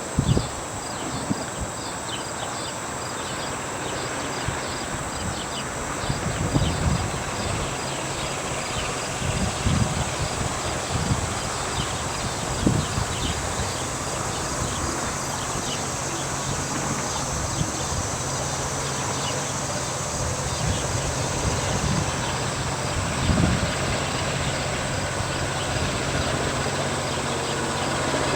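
EJ&E #656 diesel locomotive's engine running at a distance, a low drone slowly growing louder as it approaches. Insects chirp steadily throughout, and there are a few low thumps.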